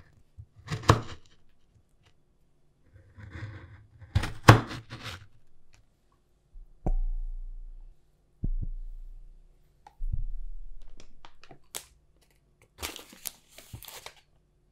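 A Global chef's knife crunches twice through a buttery sablé tart crust, at about a second in and again around four and a half seconds. Then butter is dropped three times into a glass bowl on a kitchen scale with dull thuds, and near the end there is a rustling patter as powdered sugar goes into the bowl.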